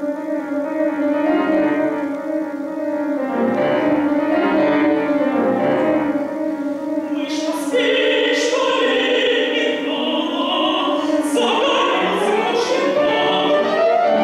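Classical art song for voice and piano: the piano opens with sustained chords, and a trained female voice enters about halfway through, singing in Russian, her line sliding upward near the end.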